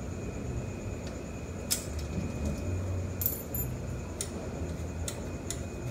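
A few sharp metallic clicks and clinks as the motorcycle's stock exhaust canister is handled and worked off its mount, over a steady low hum.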